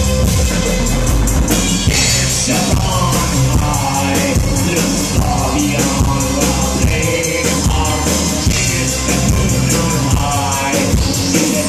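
Live electro-industrial band playing loud, a steady drum-and-electronics beat under the singer's shouted, processed vocals.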